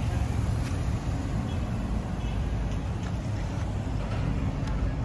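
Steady low rumble of distant city traffic, with a few faint light ticks.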